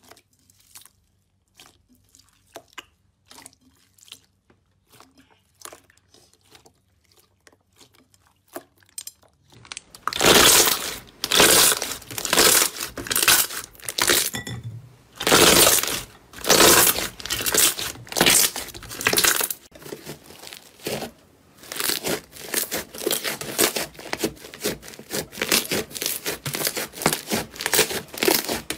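Slime being pressed and squeezed by hand. For about the first ten seconds there are only faint scattered pops and clicks as clear slime packed with small beads is pressed; then loud squeezing strokes start, about one a second, and come faster, several a second, in the last third.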